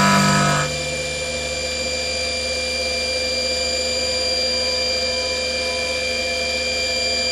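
CNC milling machine running, its end mill cutting a metal workpiece: a steady spindle whine with several fixed tones over a low hum and cutting noise. Music cuts out under a second in.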